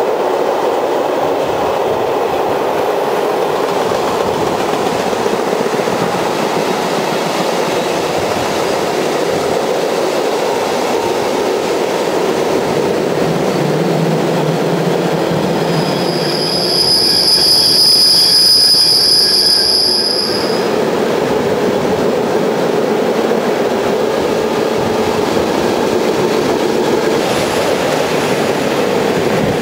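Steady running noise of two trains side by side, with freight wagons rolling past close alongside on the next track. A bit past halfway, a high steel-on-steel wheel squeal rings out for about four seconds on a curve and is the loudest part.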